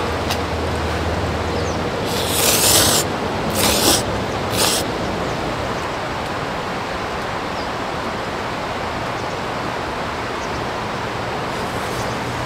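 Steady rushing of a mountain valley stream, with three short, noisy slurps of ramen noodles about two to five seconds in.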